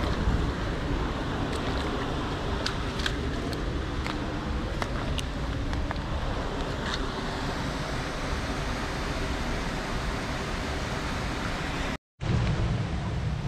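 Shallow stream water running steadily over rocks, with scattered sharp clicks of flip-flop footsteps on wet stones in the first half. The sound cuts out briefly about twelve seconds in and comes back with more low rumble.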